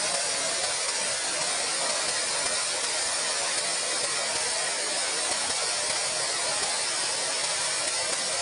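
Waterfall: the steady rush of falling water, an even hiss that does not change.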